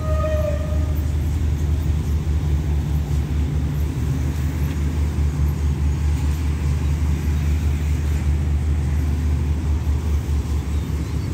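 Diesel passenger train standing at a station platform, its engine running steadily as a low hum. A short high tone sounds at the very start.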